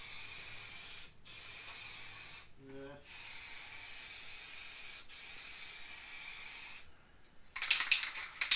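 Aerosol spray paint can hissing steadily in long bursts, with brief breaks. Near the end the spraying stops and the can is shaken, its mixing ball rattling rapidly.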